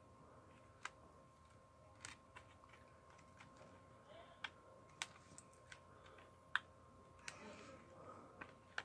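Clear plastic disc trays of a multi-disc DVD case being flipped and handled: about ten sharp, separate plastic clicks and taps, the loudest about two-thirds of the way in, with a brief rustle near the end.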